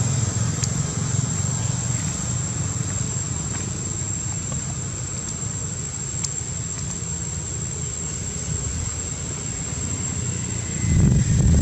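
Steady low rumble and hiss of outdoor background noise with a few faint clicks, swelling louder near the end.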